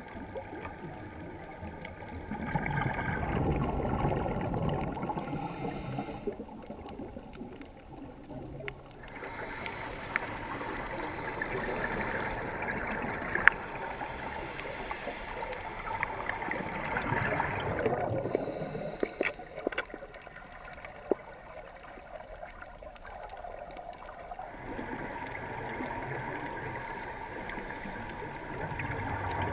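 Underwater scuba sound: a diver's exhaled bubbles gurgling in swells a few seconds long, with quieter stretches of water noise between them and a couple of sharp clicks.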